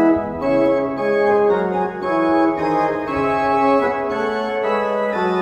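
Historic Pieter van Assendelft pipe organ, tuned a semitone below normal pitch, playing a passage of held chords under a moving melody. The notes change about every half second to a second, and the playing starts abruptly.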